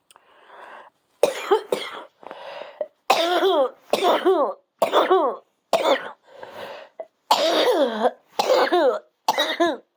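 A person in a coughing fit: a soft breathy sound, then about ten hard, rasping coughs in quick succession. The coughing follows a hit from a cannabis vape that is harsh on the throat.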